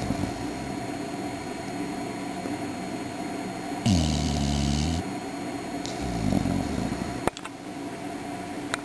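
A sleeping pet snoring in slow, low, buzzy breaths over a steady background hum. The loudest snore comes about four seconds in and another follows about two seconds later. A sharp click sounds just past seven seconds.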